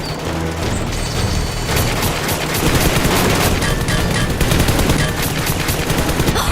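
Rapid bursts of gunfire like machine-gun fire, setting in about two seconds in, over action background music.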